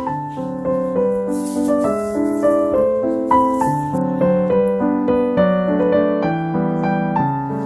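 Background piano music: a light melody of single notes over chords.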